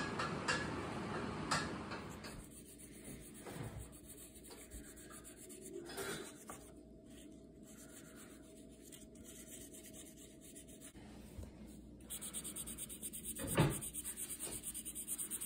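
Oil pastel rubbing and scraping across paper, then a marker scratching back and forth over the paper in quick, even strokes. A single knock comes near the end.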